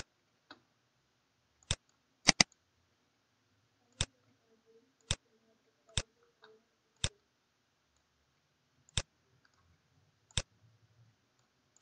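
Computer mouse button clicking: about ten sharp single clicks spaced irregularly, including a quick double click about two seconds in.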